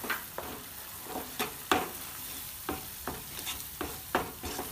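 Wooden spatula stirring and scraping sautéed onions, capsicum and cabbage in sauce around a nonstick wok, in a dozen or so quick, irregular strokes over a steady sizzle.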